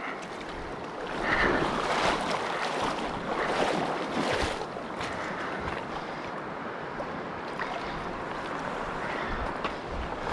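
Shallow river water sloshing and splashing around a landing net as a netted trout is handled in the water, over the steady rush of the stream. The splashing is loudest from about a second in to about five seconds in.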